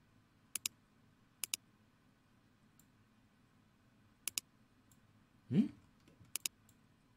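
Computer mouse clicks: four quick double ticks, each a button press and release, spread unevenly, with a couple of fainter ticks between them. A brief low rising sound about five and a half seconds in is the loudest moment.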